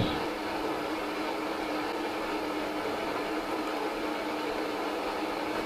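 Steady electronic hiss of static with a low constant hum under it, unchanging throughout.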